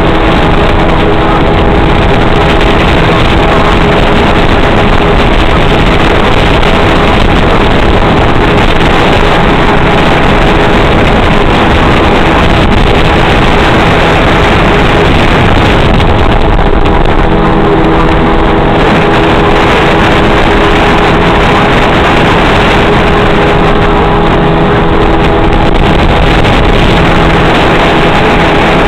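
Motorboat engine running steadily at speed while pulling a rider on a tube, with rushing wind and water noise on the microphone. Loud and even throughout.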